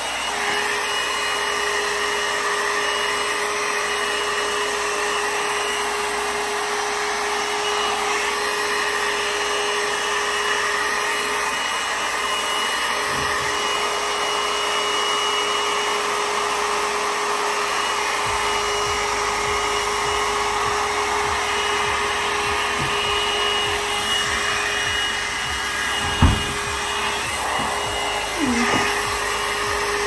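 One-step hot-air brush dryer running on its high setting as it is worked through hair: a steady fan whir with a constant hum tone. A brief thump about 26 seconds in.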